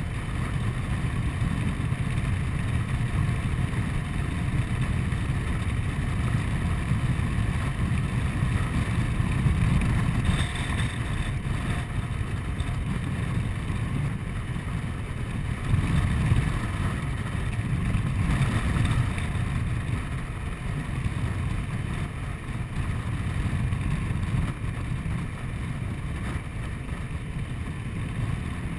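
Honda Forza 125 scooter on the move, its single-cylinder engine and CVT running steadily under low wind buffeting on the camera microphone, swelling briefly a couple of times.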